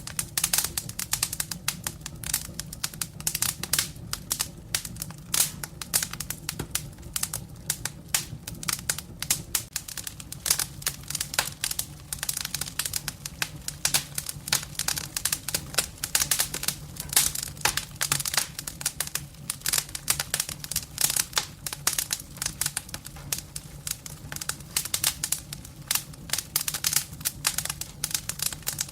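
Firewood burning in a fireplace: dense, irregular crackling and popping over a low, steady rumble of the fire.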